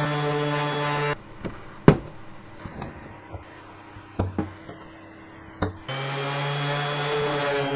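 DeWalt random orbit sander running on wood, stopping about a second in. A few sharp clicks follow as old staples are picked out of the dresser top with a metal pick. The sander starts again about six seconds in.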